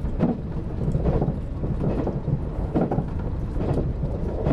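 381 series electric limited express running at speed, heard from inside the front passenger seat: a steady low rumble of wheels and motors, with a clack recurring a little under once a second.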